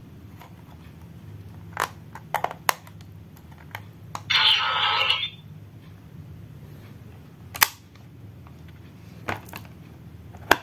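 Plastic clicks and clacks from a bootleg DX Decadriver toy belt buckle being handled and fitted to its belt. About four seconds in, the toy's small built-in speaker plays a loud electronic sound effect lasting about a second.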